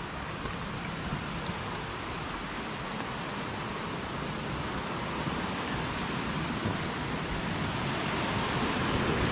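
Steady rush of flowing water in a gorge, growing slightly louder toward the end.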